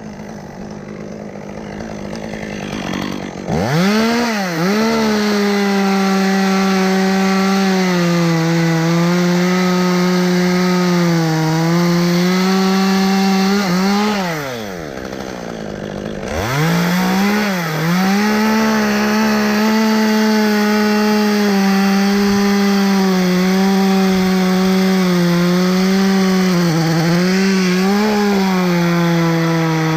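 Two-stroke chainsaw running at full throttle through wood, its pitch sagging a little under load. The throttle drops off briefly about halfway through, then the saw revs back up and cuts on.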